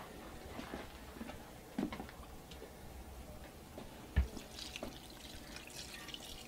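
Bowls being handled with small knocks and a dull thump about four seconds in, then seasoned ice water with jerky spices and cure being poured from a bowl onto ground venison, splashing and dribbling.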